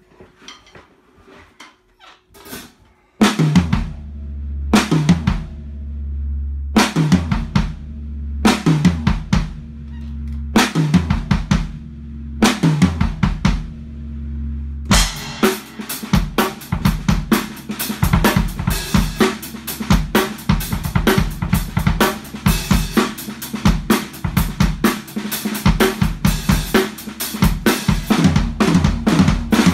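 Drum kit played with sticks. After a few light knocks, short phrases of drum strokes and bass drum begin about three seconds in, each leaving a long low bass-drum ring. About halfway through the playing becomes a continuous fast groove with cymbals, built from hand strokes grouped with one-foot bass drum notes (RLRF, RLRFF, RLRFFF).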